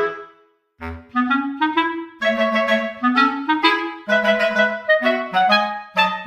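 Background music: a bouncy melody of short pitched notes in a woodwind-like tone, with a brief break just under a second in.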